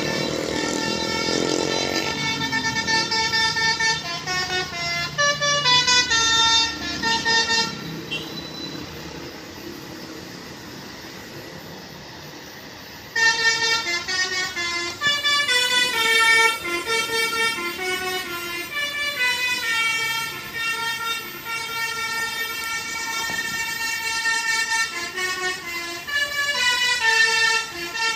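Bus's Basuri multi-tone 'telolet' air horn with roof-mounted trumpets, playing a melody of short stepped notes. It opens with a rising glide and breaks off for about five seconds in the middle, leaving only a steady hiss, then the tune resumes.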